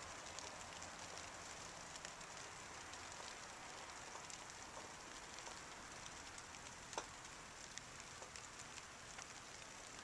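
White-lined sphinx moth's wings whirring as it hovers and feeds at flowers: a faint low hum under a steady hiss with scattered light ticks.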